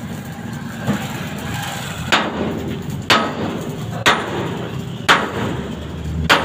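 Sledgehammer blows on a steel bar held against a farm trolley's steel drawbar, about one blow a second: a lighter first strike, then five sharp metallic strikes, each ringing briefly.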